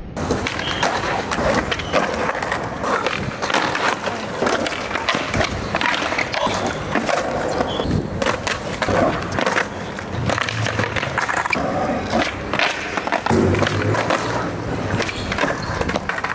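Skateboards on concrete: wheels rolling and boards being popped for flip tricks, with many sharp clacks as the boards snap and clatter down onto the ground.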